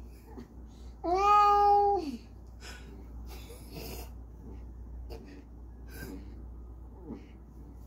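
A dying elderly cat's single drawn-out moan, about a second long, holding one pitch and then dropping away at the end, about a second in. Faint breathing and rustling follow.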